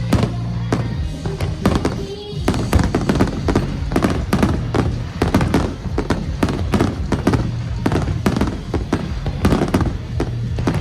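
Fireworks display: shells bursting in quick succession, many sharp bangs and crackles, with music playing underneath.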